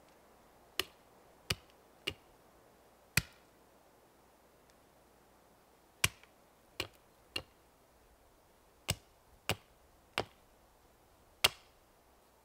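Short-handled axe chopping into a thin standing tree trunk: eleven sharp, separate chops, mostly in runs of three with short pauses between.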